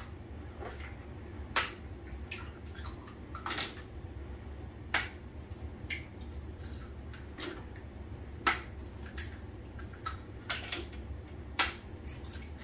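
Eggs being cracked one after another into a food processor bowl: sharp taps and clicks of shell every few seconds, four of them loudest, over a low steady hum.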